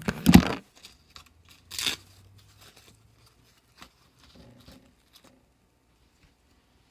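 A sheet of dried nori seaweed being cut up: two short tearing sounds in the first two seconds, then faint scattered clicks and rustles.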